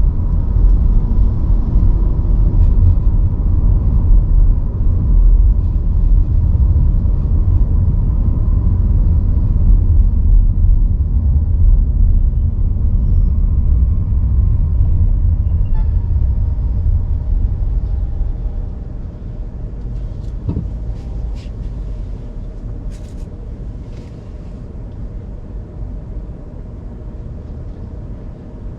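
Low, steady rumble of a car driving on city streets, tyre and engine noise, growing noticeably quieter about two-thirds of the way through.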